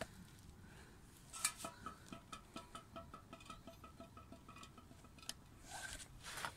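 Faint music with a quick, evenly repeated pattern of notes, and a brief rustle near the end.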